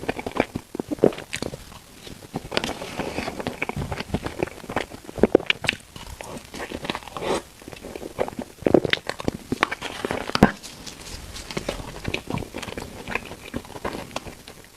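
Close-miked eating: biting into and chewing food, with many irregular sharp clicks and short smacking bursts.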